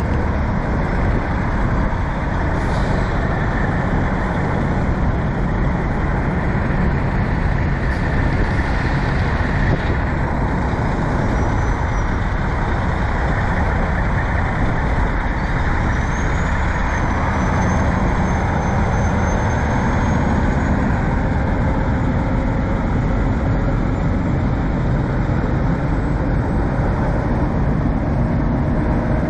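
Diesel engine of a long-nose semi tractor running steadily as the loaded flatbed rig pulls slowly away, with two short air hisses about three and eight seconds in. A thin high whistle rises and then holds for several seconds midway.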